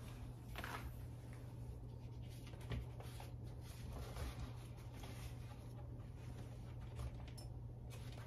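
Faint rustling, light scraping and a few soft knocks as decorative pumpkins and a cloth dish towel are moved about in a woven tray on a counter, over a steady low hum.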